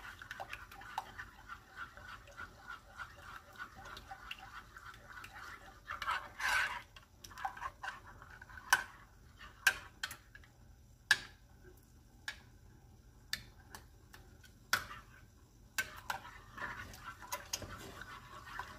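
A metal whisk stirring lemon custard in a glass bowl, with quick scraping strokes and sharp clinks against the glass. Midway the strokes thin out to scattered clinks, and the quick stirring picks up again near the end.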